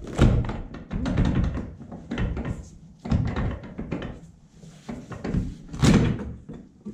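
Porsche Cayenne roof rack rail being rocked loose and lifted off the car roof, giving a series of loud thunks and knocks. The rail is sticking because it had not been off in a while.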